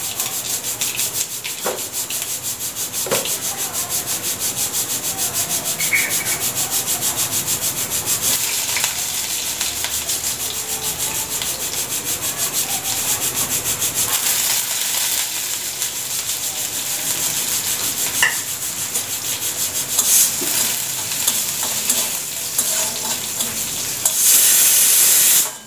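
Oil sizzling in a kadai on a gas stove, a steady frying hiss with a fast even ripple and a few light clicks of utensils. The hiss grows louder and brighter for the last second or two.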